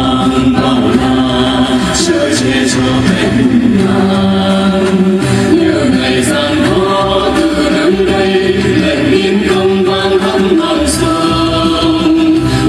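Vietnamese folk-style song sung by a group of men and women into microphones, amplified over a PA, with instrumental backing music and occasional sharp percussion strikes.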